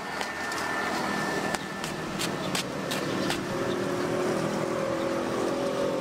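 A motor vehicle's engine, growing louder over the first half and then running steadily, with a few sharp clicks in the first half.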